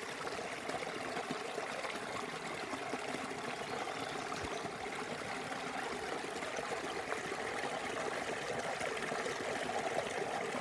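A small spring-fed stream running over rock ledges, a steady babbling and trickling of water.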